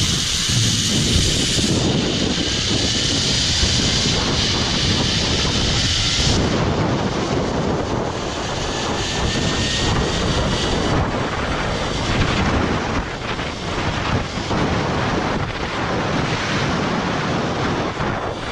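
Heavy wind rushing over the microphone during a fast zip-line ride, with the high whir of the trolley pulleys running along the steel cable. The high whir cuts out about six seconds in and comes back briefly a few seconds later.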